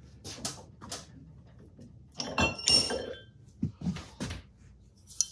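Metal clinking and knocking as a spoked metal flywheel with a pressed-in pinion gear is handled at a bench vise, with a brighter ringing clank between two and three seconds in.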